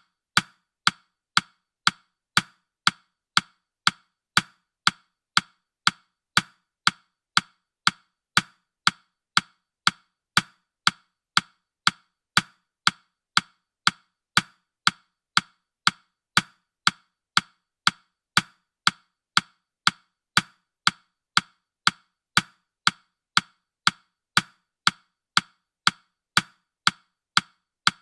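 Ticking of a countdown timer: sharp, even clock-like ticks at a steady beat of about two a second.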